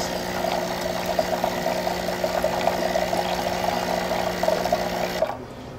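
Breville Infuser espresso machine's vibratory pump running with a steady hum while hot water flows from the wand into a stainless pitcher, flushing the hot-water circuit; it cuts off suddenly about five seconds in.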